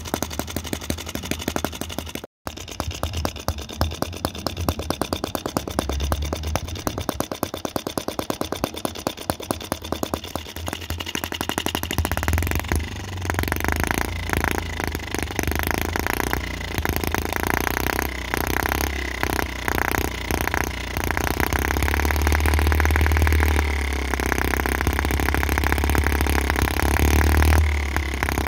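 Microcosm M25 sideshaft four-stroke model gas engine running, firing in quick regular beats. About twelve seconds in it picks up speed and runs louder.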